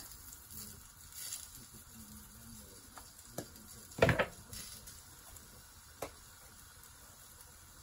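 Potatoes frying in a little oil in a pan, a faint steady sizzle. A few short knocks and clicks come from a seasoning shaker and other items being handled, the loudest a double knock about four seconds in.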